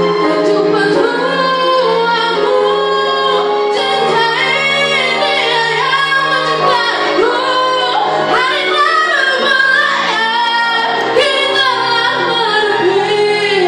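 Young women singing a melody with musical accompaniment, the held low notes of the backing changing a few times.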